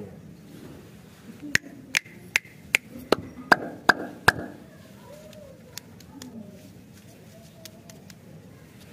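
A quick, even series of eight sharp clicks, about two and a half a second, then a few fainter scattered ticks.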